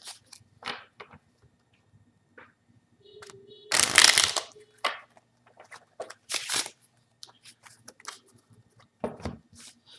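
A deck of playing cards being riffle shuffled in the hands. There is a loud, fast flutter of cards interleaving about four seconds in, and another shorter flutter a little after six seconds. Between them are scattered clicks and snaps as the deck is cut, squared and bridged.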